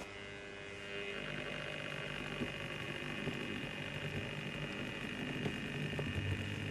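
A model railway locomotive's electric motor running as the engine moves along the track, starting about a second in: a steady high whine over a low hum, with light wheel-on-rail rattle.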